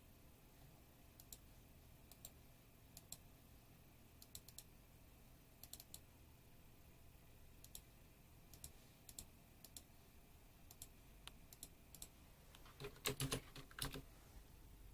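Faint, sparse clicking of a computer keyboard and mouse, mostly in quick pairs about a second apart, with a short flurry of louder clicks near the end.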